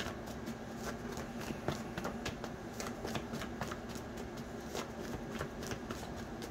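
A deck of oracle cards being shuffled by hand: a continuous run of quick, irregular card clicks and snaps.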